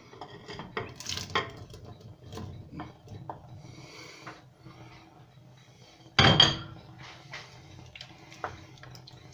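Wooden spoon scraping and knocking against a ceramic plate and the rim of a stainless steel pot as small meatballs are pushed into tomato sauce and stirred. Scattered light clicks and scrapes, with one louder clatter about six seconds in.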